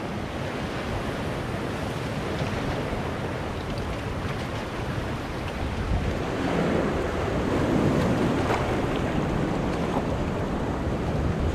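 Sea waves washing in among rounded boulders on a rocky shore, a continuous surf wash that swells louder about six seconds in as a bigger wave surges through the rocks, then eases off.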